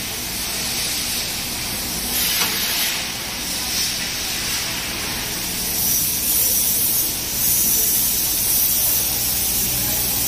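Bus bar heat shrink tunnel machine running: a steady rushing hiss from its hot-air blower over a low, even hum of its motors.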